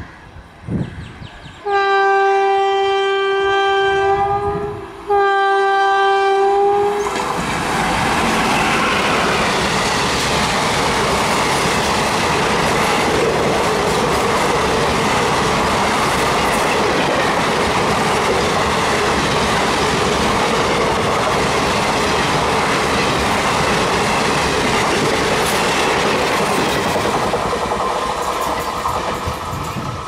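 WAP1 electric locomotive sounding its horn in two long blasts, the second following right after the first, then an express train running through at speed: a loud steady rush of wheels on rail with clickety-clack from the passing coaches, easing slightly near the end.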